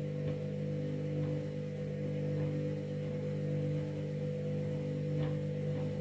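Candy front-loading washing machine's drum motor running with a steady hum as the drum turns a load of laundry, with a few faint knocks. It is a spin attempt with an unbalanced load, one that the uploader takes for a cancelled spin.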